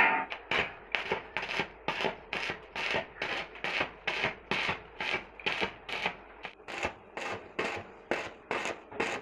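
A hand tool rasping back and forth on metal in even strokes, about two and a half a second.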